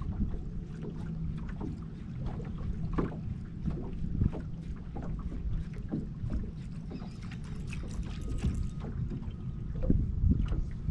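Wind buffeting the microphone over a steady low rumble, with irregular light slaps and knocks, like water lapping against a boat's hull.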